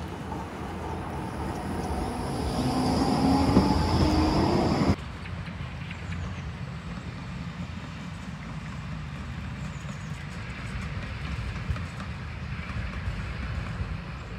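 Tram running on rails, its rumble and motor whine growing louder over the first few seconds, then cutting off suddenly about five seconds in, leaving a quieter steady rumble.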